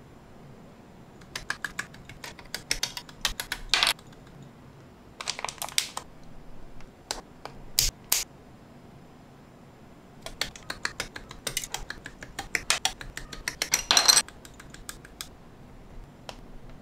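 Small plastic model-kit parts clicking and snapping together in the fingers. The clicks come in quick clusters, with short pauses between them.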